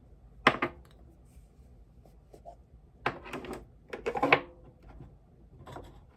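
Makeup products being handled and set down: a few short clicks and knocks at irregular intervals.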